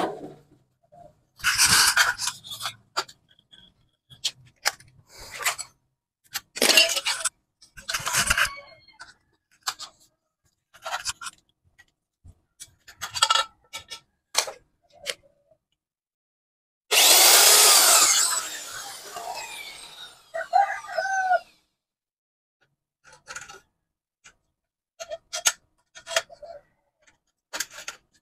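Hollow aluminium profiles knocking and clinking against each other and the concrete floor as a cabinet top frame is put together, with sharp snaps of a hand pop-rivet gun. About 17 s in, a louder scraping clatter with a ringing tone lasts about a second and a half.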